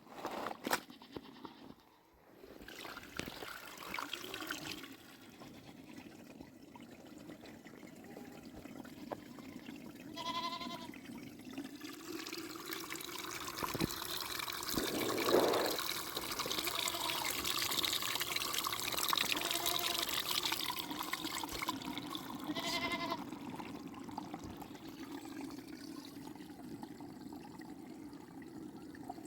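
Liquid pouring and trickling steadily, heaviest in the middle, with a bleat from the flock about ten seconds in and another near the end.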